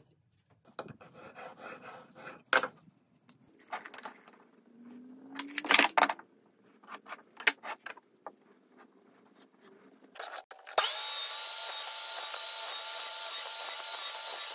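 Wooden boards knocking and scraping on a workbench as they are handled over the first ten seconds. Then, about 11 seconds in, a power miter saw switches on abruptly and runs steadily.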